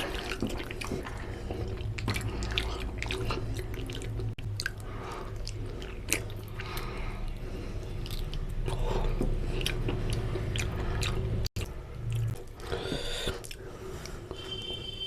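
Close-miked chewing and eating mouth sounds, with many small wet clicks and smacks, over a steady low hum.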